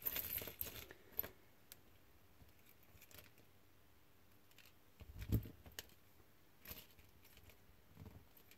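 Small electronic components tipped out of a plastic bag onto a mat, with a short bag rustle at the start. Sparse light clicks follow as the parts are sorted by hand, with one louder, soft knock about five seconds in.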